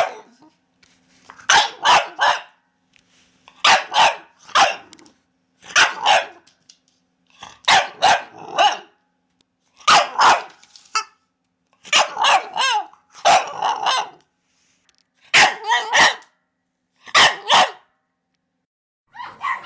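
A puppy barking in short, high-pitched bursts of two or three barks, one burst about every two seconds, with gaps of silence between. About two-thirds of the way through, one bark slides down in pitch like a yelp.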